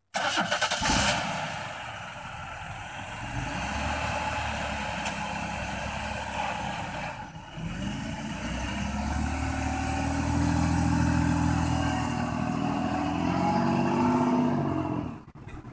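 Chevrolet Lumina's engine accelerating away, its note climbing in pitch through the second half and dropping off sharply shortly before the end.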